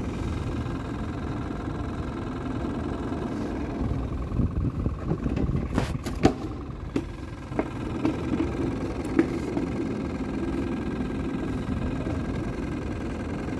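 Steady low engine-like drone, with a few sharp knocks and handling clatter about six seconds in.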